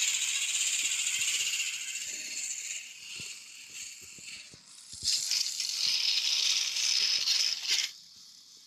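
Battery-powered toy train running on plastic track: a high motor and gear whirr with a rattle and light clicks from the wheels. It weakens partway through, picks up again about five seconds in, and cuts off abruptly near the end as the engine stops.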